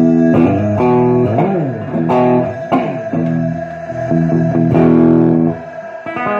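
Electric guitar playing a rockabilly riff, with sliding notes between ringing chords; the playing drops away briefly near the end.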